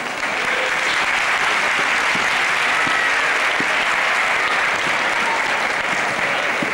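Audience applauding: dense clapping that breaks out at the start, holds steady and eases off a little near the end.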